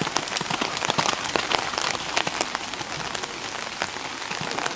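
Rain falling on a hard surface: a steady hiss full of many small drop ticks.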